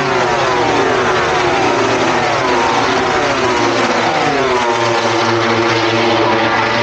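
MotoGP racing motorcycle engines at high revs, the pitch sliding down over the first couple of seconds, rising and falling again, then holding steadier near the end.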